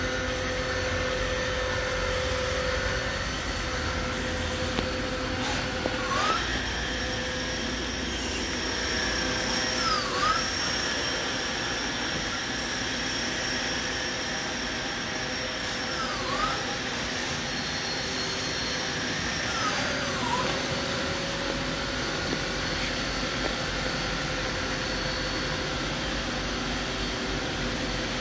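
Doosan Lynx 220G Super CNC gang tool lathe running with coolant flowing. There is a steady machine hum, and a high motor whine comes in about six seconds in, dips and recovers twice, and drops out near twenty seconds.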